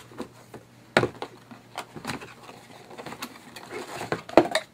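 Cardboard packaging and a plastic-bagged microphone being handled: scattered light knocks, scrapes and rustles, with a sharper knock about a second in and another near the end.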